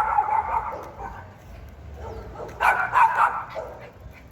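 Miniature pinscher barking in quick volleys: a run of barks at the start and another about two and a half seconds in.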